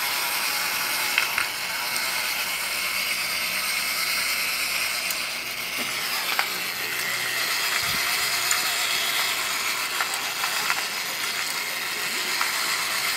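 Toy fishing game running: its small motor and plastic gears turn the two ponds with a steady whirring rattle. A few light plastic clicks come from the rods and hooks knocking the fish.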